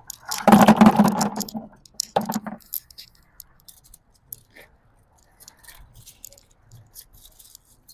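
Black walnuts clattering into a container: a loud rush of knocking nuts for about a second, a shorter one just after, then scattered single clicks of nuts knocking together.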